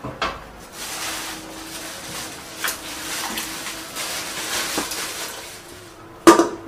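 An aluminium cooking pot knocked down onto a gas stove, then a plastic bag rustling as its contents are tipped into the pot, with a few small clicks. Near the end the aluminium lid goes on with a loud, sharp clatter.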